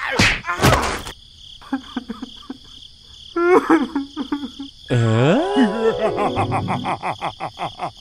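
Cartoon sound effects: a quick whoosh, a few light clicks, squeaky chirps, then a long warbling tone that bends down and up over a fast rattle of about seven clicks a second.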